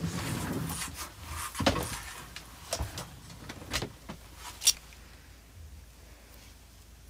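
Close handling noise: rustling and several sharp knocks and clicks, the loudest a little before five seconds in, then a quiet room hiss.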